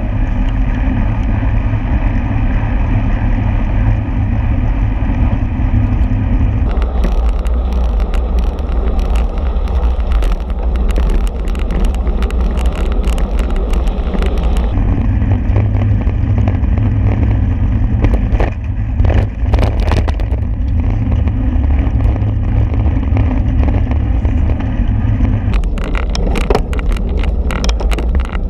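Wind buffeting the microphone of a camera riding on a road-racing bicycle at race speed, a loud steady rumble mixed with tyre and road noise. The sound shifts abruptly a few times. Bursts of rapid clicking and rattling come between about 7 and 14 seconds and again near the end.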